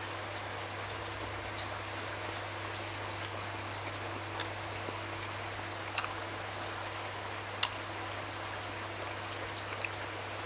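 Steady hiss of heavy rain, with a constant low hum underneath and a few short sharp clicks scattered through it.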